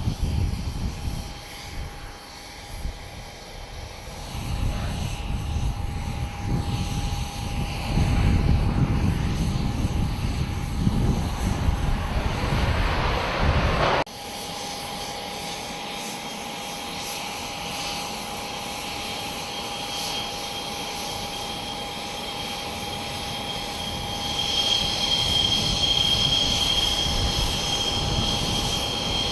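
Jet engines of a Chengdu J-20 stealth fighter running as it taxis: a steady whine over a low rumble. About halfway through the sound cuts off abruptly, then carries on with the rumble gone and a higher whine coming up near the end.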